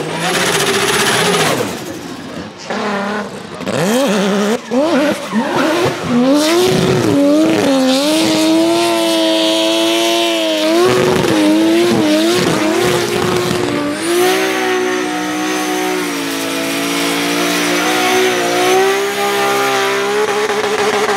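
Drift car engines revving hard and repeatedly rising and falling in pitch during smoky donuts, with tyre squeal. A single-turbo three-rotor 20B rotary in a Corvette C6 is heard, and about two thirds of the way through a different engine takes over, a 2JZ straight-six in a BMW M3 E92.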